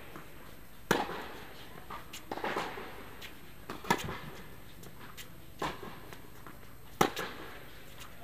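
Tennis balls struck by rackets in a rally: sharp pops about every three seconds, with softer knocks between, echoing in a large indoor court hall.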